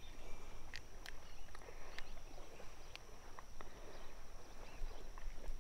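Scattered light clicks and taps as a small smallmouth bass is unhooked from a swimbait by hand, over a steady high-pitched insect drone.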